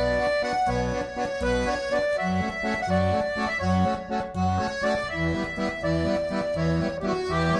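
Background instrumental music: a melody of held notes over a steady, pulsing bass accompaniment.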